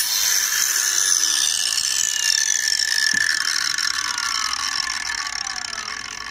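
Makita DGA504Z cordless angle grinder with a grinding disc spinning down off the steel plate after the trigger is released: a whine that falls steadily in pitch and slowly fades.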